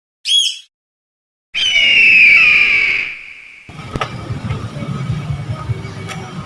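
A run of separate comedy sound effects with dead silence between them: a brief high chirp, then a loud whistle-like squeal that slides slowly down in pitch, then a rumbling, crackling noise with scattered clicks.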